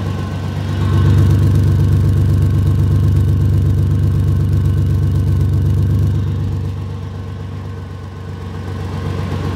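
2004 Ford Ranger idling, heard up close at an exhaust leak just ahead of the flex pipe: unmuffled exhaust puttering out of the leak. It fades somewhat past the middle and comes back near the end.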